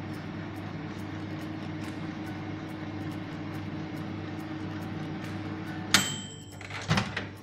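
Anex microwave oven running with a steady hum; about six seconds in the timer bell dings once, ringing briefly, as the cycle ends and the hum stops. About a second later come a couple of clicks as the door is opened.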